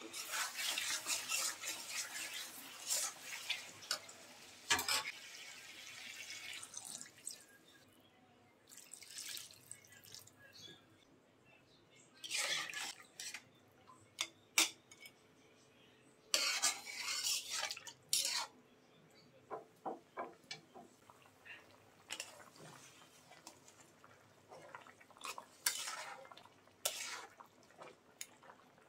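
Steel spatula scraping and clinking against a metal cooking pot in short, irregular bursts as rita fish is stirred, first in spice paste and then in watery curry. A longer wet hiss fills the first several seconds.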